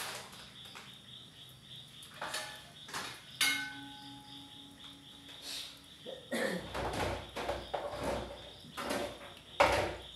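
Scattered knocks and clatters over a steady high insect chirping, with a louder low rumbling noise from about six seconds in.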